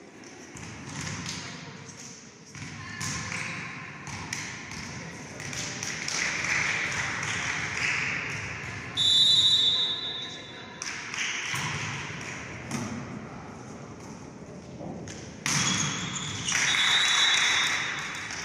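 Volleyball rally in a sports hall. A referee's whistle blows about nine seconds in to signal the serve, then come thuds of the ball being served and struck, with players' shouts. A second whistle sounds near the end, stopping the rally.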